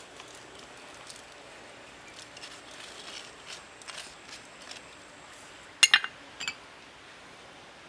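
Kitchen utensils and dishes handled: scattered light taps and clicks, then two loud ringing clinks close together about six seconds in and a softer one just after.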